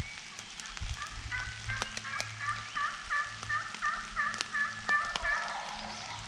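Wild turkey yelping: a run of about a dozen yelps, about three a second, with raindrops ticking.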